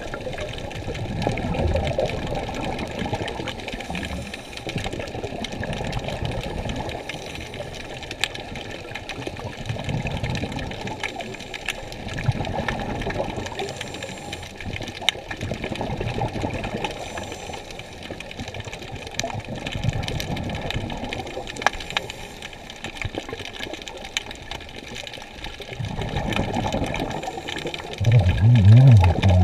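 Muffled water sloshing and surging around an underwater camera, swelling and fading every few seconds, with scattered sharp clicks. A louder low rumble comes near the end.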